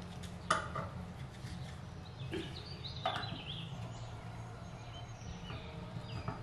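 A wrench, then a ratchet, clinking on a rusted nut on a parking-brake part held in a bench vise as the nut is worked loose, with two sharp metal clicks, about half a second and three seconds in, over a steady low hum. Short high chirps come between about two and four seconds in.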